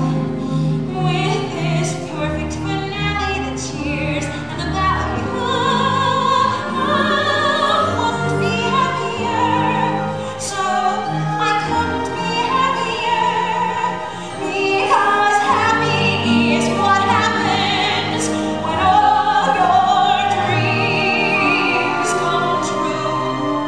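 A woman singing a musical-theatre song in a full, operatic style with a wide vibrato, over instrumental accompaniment.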